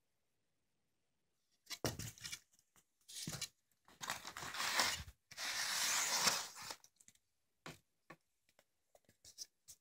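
Rustling and scraping of firework rockets and their packaging being handled, in noisy bursts for about five seconds, then a few light clicks and taps.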